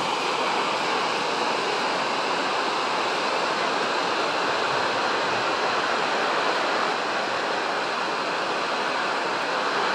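Steady rushing of river rapids, white water running over rocks, even throughout.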